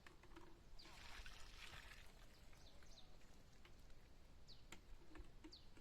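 Faint outdoor ambience with a bird giving short, high, downward-sweeping chirps about every second or two, and a brief rustle about a second in.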